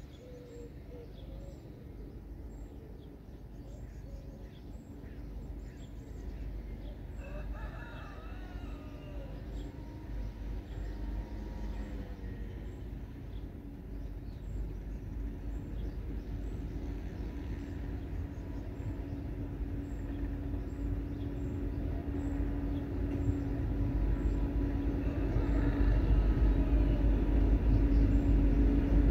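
Freight locomotive approaching slowly along the track, its engine rumble growing steadily louder, with a steady hum coming up strongly in the last few seconds as it draws near. A rooster crows once about a quarter of the way in.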